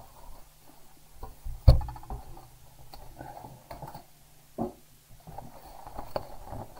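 Cardboard box being opened and emptied by hand, with rustling of packing and paper and a few knocks, the loudest about two seconds in.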